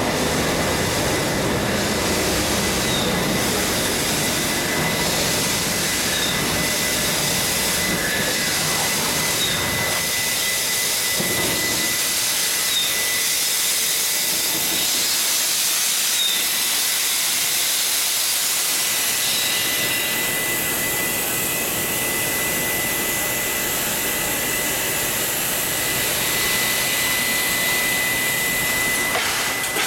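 NSW 36 class steam locomotive 3642 hissing steam loudly and steadily as it stands at the platform. A low rumble of the train rolling slowly past dies away about ten seconds in.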